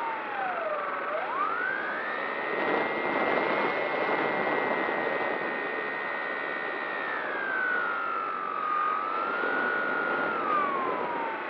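A model plane's motor and propeller whining, heard from a camera on the plane, over steady wind rush. Its pitch dips sharply and climbs back about a second in, holds high and steady, sags a little after about seven seconds, then falls away near the end as the throttle comes back.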